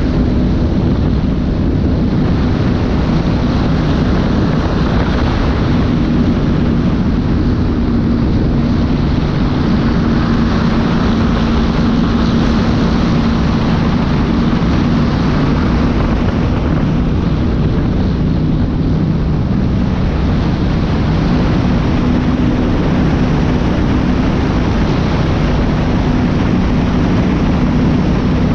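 Go-fast powerboat running at speed, its engines a loud, steady drone under a constant rush of wind and water.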